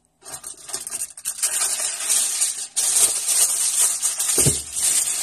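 Aluminium foil crinkling and rustling as a sheet is handled, with a dull knock about four and a half seconds in.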